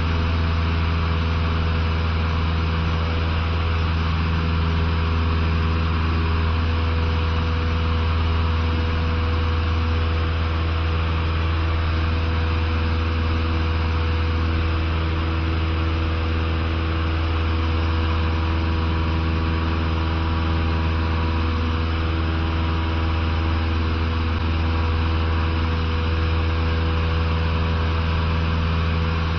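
Cessna 150's Continental O-200 four-cylinder engine and propeller in flight, heard from inside the cabin: a steady low drone at constant power with a hiss of airflow over it.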